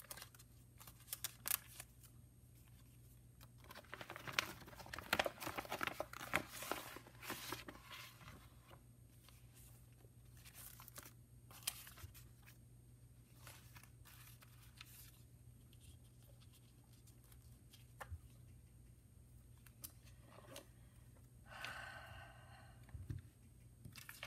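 Sheets of paper being handled: rustling, crinkling and shuffling as collage papers are pulled out and spread on a desk, densest a few seconds in, with scattered light clicks and taps.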